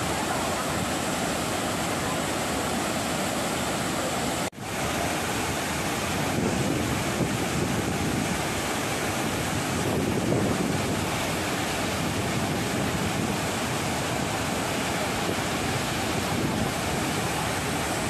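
Waterfall running full after a typhoon: a loud, steady rush of falling water. About four and a half seconds in, the sound drops out sharply for a moment and comes straight back.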